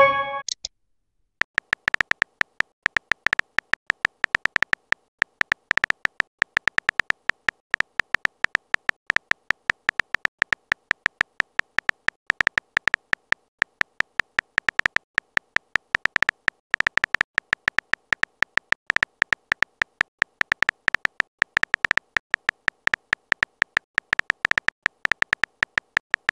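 Phone keyboard typing sound effect: short clicks, several a second with uneven gaps, as a text message is typed out one letter at a time. It starts about a second and a half in.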